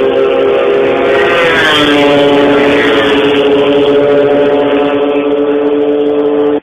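Old Honda flat-track racing motorcycle engine running at high revs at full speed down the straight of a dirt mile oval. The pitch drops once about a second and a half in, then holds steady, and the sound cuts off suddenly at the end.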